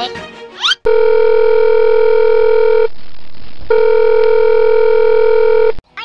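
A steady electronic telephone-style tone, held for about two seconds, then a short break, then held again for about two seconds before cutting off suddenly. A short rising whistle comes just before the first tone.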